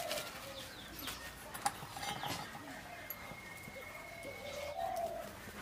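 Faint cooing of a dove, with a few light clicks and rustles from a plastic bag of gram flour and a metal sieve being handled.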